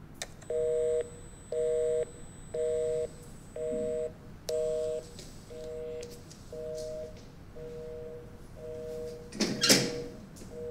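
A telephone busy signal playing from a mobile phone: a steady two-tone beep, half a second on and half a second off, once a second, growing softer after about five seconds. Near the end there is a single loud metallic clunk as the wheel handle of a steel safe door is turned.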